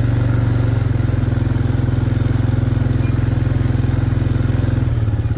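An engine idling steadily with a low, evenly pulsing hum; the note shifts slightly near the end.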